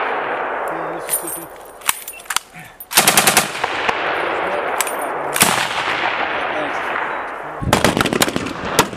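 Bursts of automatic gunfire, each shot sharp and followed by a long rolling echo: a loud report right at the start, a short rapid burst about three seconds in, another about five and a half seconds in, and a quicker run of shots near the end.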